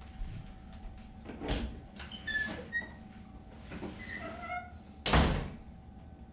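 A wooden panel door opening with a few short squeaks, then shut with a loud knock about five seconds in.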